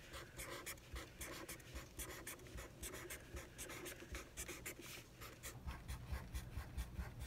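Sharpie permanent marker drawing on thin printer paper: faint, quick scratches of the felt tip in many short strokes as small shapes are drawn.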